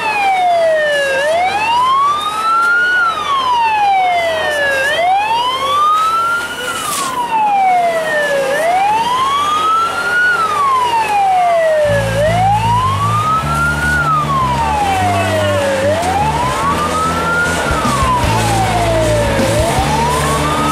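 Police siren wailing, its pitch rising and falling slowly in a cycle that repeats about every four seconds. A low rumble joins it a little past halfway.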